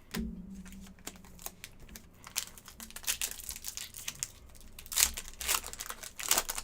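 Trading cards and a pack wrapper being handled: irregular light clicks, card flicks and crinkling, loudest about five seconds in.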